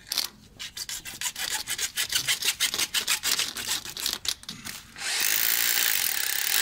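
A hand-held pipe cutter worked through white PVC electrical conduit in a quick run of short clicking strokes. About five seconds in, a Makita hammer drill starts suddenly and runs steadily, drilling into the brick pillar.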